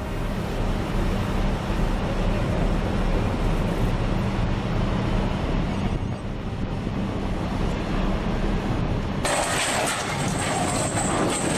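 Heavy machine's engine running steadily with a low hum. About nine seconds in, the sound changes abruptly to a louder, hissing and clattering noise.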